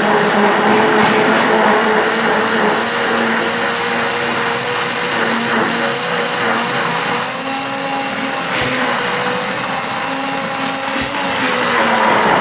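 Handheld immersion blender running steadily in a jug, churning pancake batter of eggs, milk and flour. Its motor hum shifts slightly in pitch a few times as the load in the batter changes.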